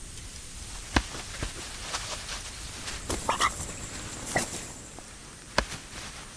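A shoebill chick's heavy bill knocking and pecking at its smaller nestmate in a few separate sharp strikes, with a couple of short high squeaks around the middle.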